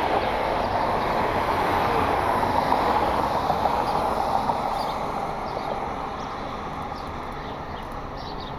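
Jet aircraft engine noise passing by, a steady loud rush that peaks about two to three seconds in and then slowly fades.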